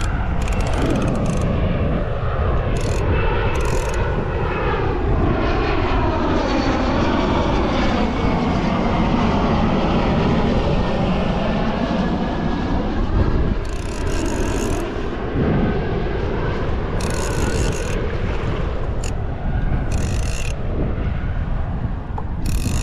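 A droning engine sound that swells through the middle, its tones sweeping slowly down and back up, over a steady wind rumble on the microphone. Short bursts of hiss come and go near the end.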